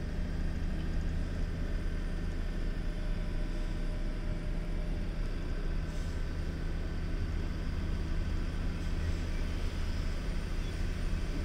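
Diesel engine of a heavily loaded truck pulling steadily up a long climb, heard from inside the cab as a low, even drone. The truck is struggling under its load on the gradient.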